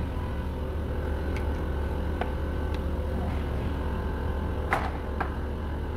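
A steady low machine hum with a few faint steady tones above it, and a handful of short light clicks, one about two seconds in and two close together near the end.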